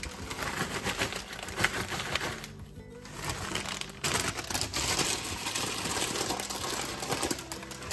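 Crinkling and rustling of a plastic potato chip bag as chips are shaken out onto a paper plate, loudest in the second half, over background music.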